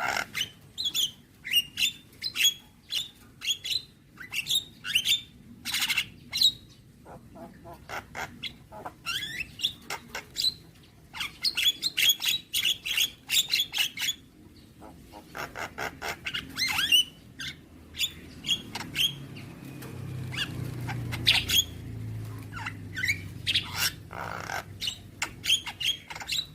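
Javan myna (jalak kebo) singing a long, rapid song of short chirps, whistles and harsh squawking notes, with brief pauses, packed with varied phrases.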